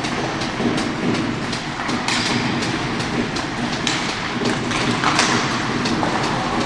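On-ice hockey game sound: skate blades scraping the ice, with many sharp clacks of sticks and puck. There are two louder scrapes about two and five seconds in.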